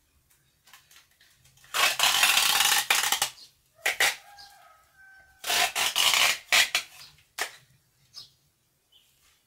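Plastic adhesive tape pulled off the roll and wrapped around a tree's root ball in rasping rips: two long pulls and several short tears, with a thin squeal between them.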